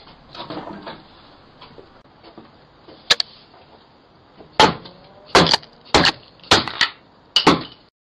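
A hammer striking the Ring video doorbell at close range. A faint tap about three seconds in, then about seven hard, sharp blows in quick succession over the last three seconds.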